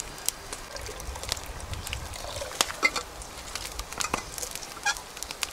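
Wood campfire crackling, with sharp, irregular pops and snaps from the burning split logs.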